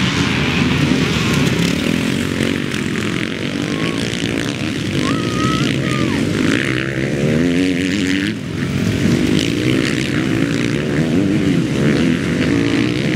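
Several motocross bikes racing by, their engines revving up and down and overlapping one another without a break.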